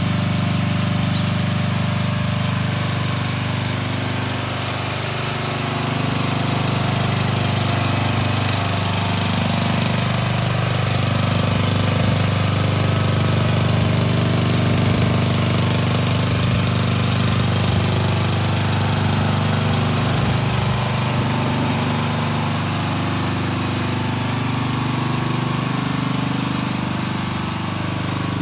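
Small engine of an AGT Industrial L12R mini excavator idling steadily, with no revving.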